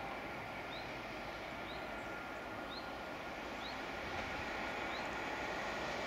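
A small bird repeating a short rising chirp about once a second over a steady outdoor hiss. The rumble of an approaching Class 86 electric locomotive and its coaches grows slowly louder in the last couple of seconds.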